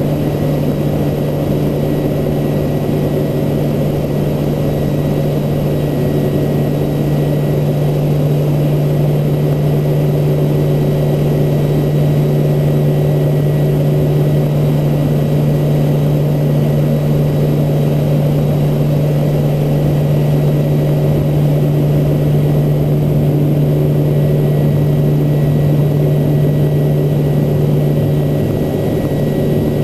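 Cockpit drone of a Navy C-2A Greyhound's twin Allison T56 turboprop engines and propellers in flight: a loud, steady hum carried by one strong low tone, unchanging throughout.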